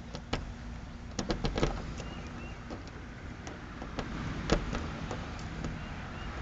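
Jiggler key being worked in a Chevy Astro van's door lock: scattered metallic clicks and rattles, a quick cluster of several about a second in and a sharper single click about four and a half seconds in, over a steady low rumble.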